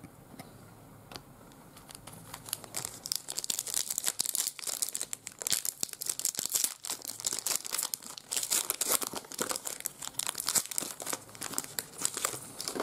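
Foil trading card pack wrapper being crinkled and torn open: a dense run of fine crackles that starts about two seconds in and stops just before the end.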